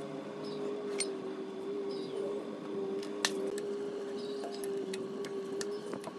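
A spanner and a bolt clinking against the rusty metal casing of an old diesel engine as a plug and bolts are loosened by hand: a few sharp metallic clicks, the loudest about a second in and again near the middle, over a steady hum.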